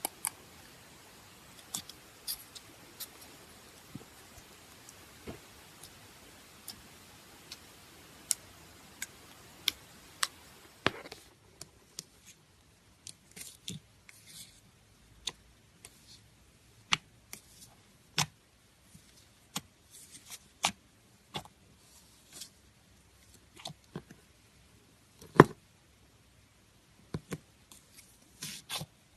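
Scattered sharp clicks and taps, roughly one every second or so, over a faint hiss that drops away about eleven seconds in.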